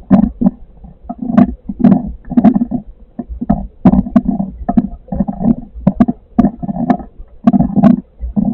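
Storm wind buffeting the microphone in irregular gusty thumps, several a second, loud enough to overload the recording.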